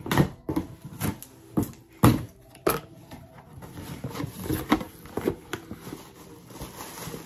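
Cardboard shipping box being handled and opened: a series of sharp knocks and thumps of cardboard in the first three seconds, then softer rustling as hands dig into plastic air-pillow packing.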